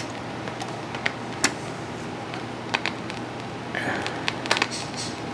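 Record changer with a record on the platter and its built-in amplifier on: a steady low hum with scattered clicks and pops, typical of the stylus riding the lead-in groove before the music starts.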